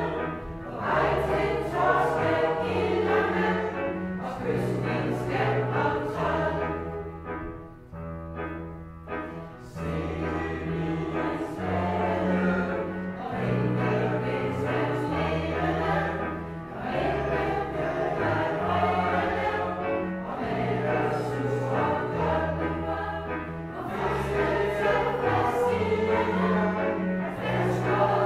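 A choir singing a Danish Christmas-concert song with instrumental accompaniment, recorded live in a church. It grows briefly softer about eight seconds in.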